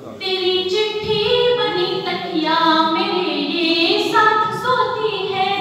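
A woman singing a verse of poetry unaccompanied, in long held notes that step up and down in pitch.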